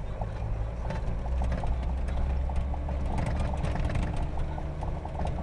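Mitsubishi Pajero 4x4 heard from inside the cabin, its engine running with a low, steady rumble while the body and interior rattle and knock repeatedly as it drives over rough grassland.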